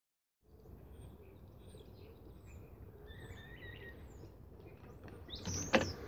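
Small birds chirping over steady low outdoor background noise, with a few louder knocks and rustles near the end.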